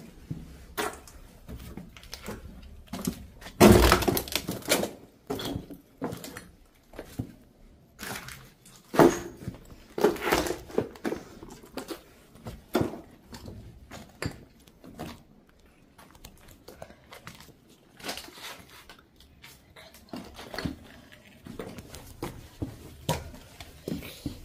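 Footsteps crunching over rubble and broken debris on a floor, with scattered knocks and cracks. A louder run of crunching and breaking comes about four seconds in and again around nine to ten seconds.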